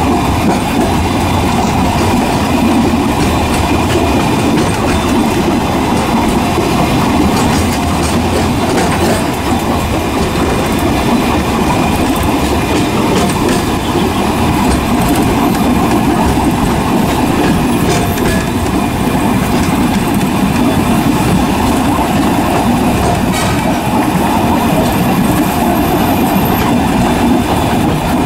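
Diaz Express tourist train running along the track, heard from aboard: steady, loud running noise of the wheels and carriages on the rails.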